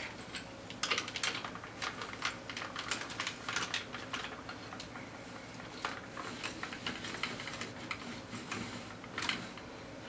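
Tripod's geared centre column being cranked up by hand: a quick, irregular run of small clicks and ticks that thins out after about four seconds, with a louder click near the end.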